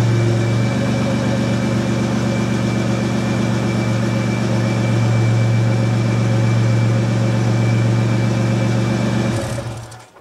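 2003 Toyota Tacoma pickup engine idling steadily, heard at the exhaust tailpipe; the sound fades out near the end.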